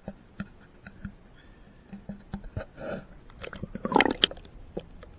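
Scattered light clicks and knocks of hands and gear being handled in a fishing boat, with a louder cluster of knocks about four seconds in.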